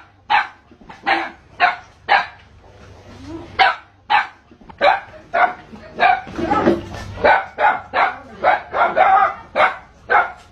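Dog barking at a snake in a rapid run of sharp barks, two or three a second. There is a short lull about a third of the way in, and a rougher, denser stretch past the middle.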